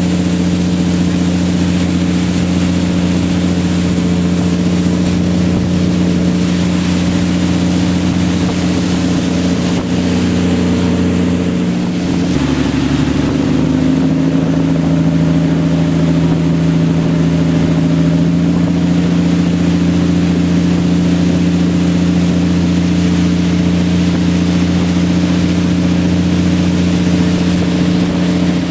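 Speedboat engine running steadily at speed, with the rush of water and spray along the hull. About twelve seconds in, the engine note drops slightly lower and then holds steady.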